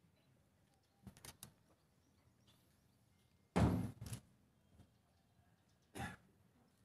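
A few scattered sharp knocks and thuds over quiet background: small clicks about a second in, a heavy thump about three and a half seconds in, and a lighter one near the end.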